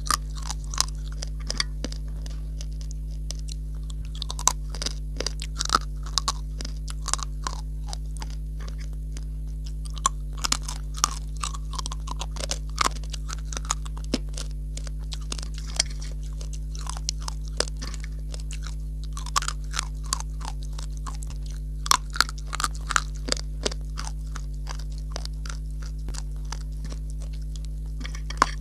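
Dry edible clay chunks being bitten and chewed close to the microphone: irregular sharp crunches, often in quick clusters, all through. A steady low hum runs underneath.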